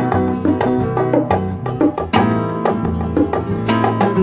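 Instrumental background music with a steady percussion beat.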